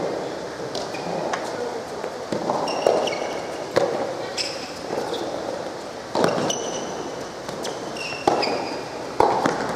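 A soft tennis rally in a large echoing hall: the rubber ball is struck by rackets and bounces, giving about six sharp hits. Between the hits come short high squeaks, typical of shoes on the court surface.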